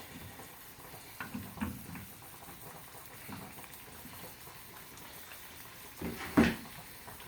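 Quiet cooking sounds from a saucepan of sauce with butter melting into it: a few light taps of a utensil early on, and one louder knock near the end.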